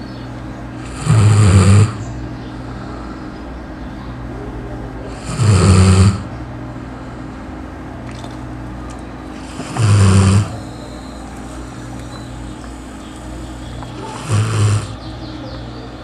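A sleeping dog snoring loudly, four long snores about four seconds apart, with a steady background hum between them.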